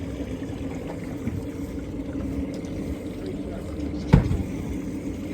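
Boat motor running steadily, with one sharp knock about four seconds in.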